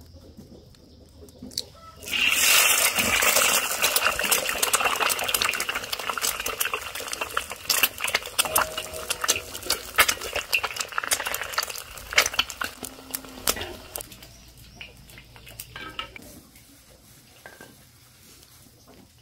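Chicken eggs frying in hot oil in a wok: a loud sizzle full of crackling, spattering pops starts suddenly about two seconds in, then dies down over the last few seconds.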